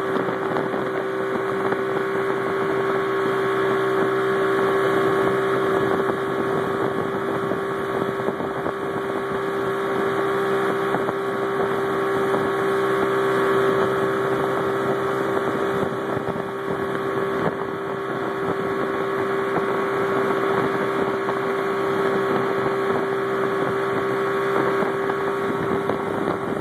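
Motorboat engine running steadily at towing speed, a constant drone with one strong steady tone, over the rush of the churning wake and some wind on the microphone.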